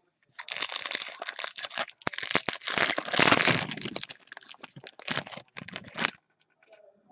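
The plastic wrapper of a 2016 Topps Series 1 jumbo baseball card pack being torn open and crinkled. It is a rapid crackling, loudest near the middle, and it stops about six seconds in.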